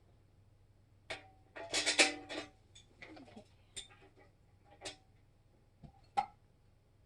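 Metal parts of a charcoal kettle grill clinking and knocking as a leg is fitted on, several knocks ringing briefly. The loudest is a quick run of clanks about two seconds in, with a sharp knock near the end.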